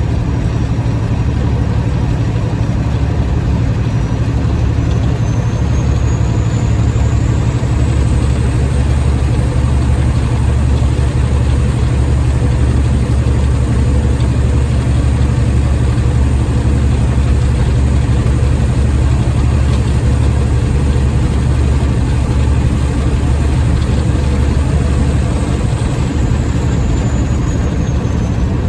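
Semi truck's diesel engine running steadily at highway speed with road noise, heard from inside the cab as a loud, even low drone. A faint high whine rises a few seconds in, holds, and falls away near the end.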